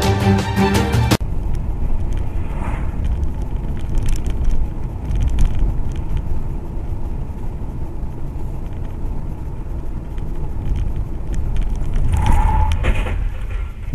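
Music cuts off abruptly about a second in, giving way to a car's steady low road and engine rumble recorded by a dash cam, with a few faint knocks. A short tone sounds near the end.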